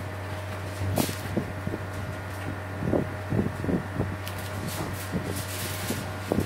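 Hands tucking banana leaves and jute sacking around the rim of a large metal cooking pot: scattered rustles and soft knocks, several in quick runs, over a steady low hum.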